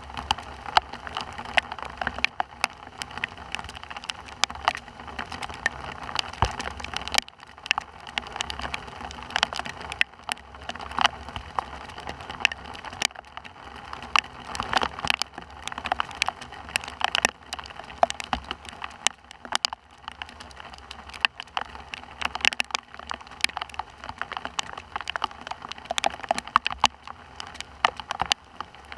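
Steady rain falling, with many sharp, irregular raindrop hits over a constant patter.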